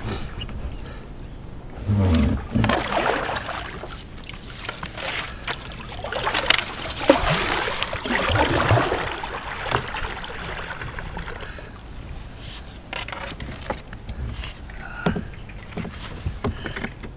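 Kayak being paddled: irregular splashing of paddle strokes in the water, with a few sharp knocks.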